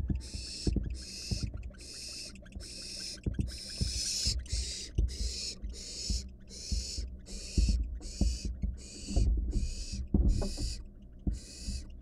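Barn owl nestlings giving a long series of rasping hisses, about two a second with a short pause near the end. This is the nestlings' food-begging 'snore'. Low thumps and scuffles come from the owl wrestling a whole rat down on the wood-chip floor of the nest box.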